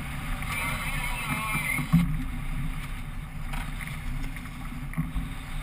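Boat's outboard motor running with a steady low hum under wind and water noise, with one sharp knock about two seconds in.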